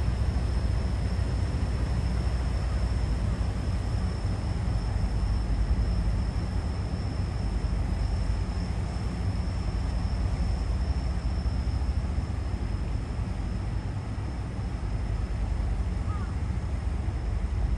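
Steady low drone of the SEA PACEO ferry's engines as it sails close past, with a faint high-pitched tone over it.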